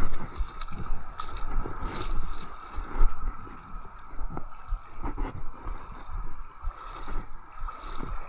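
Water washing and gurgling against the rocks of a jetty, with uneven gusts of wind buffeting the microphone.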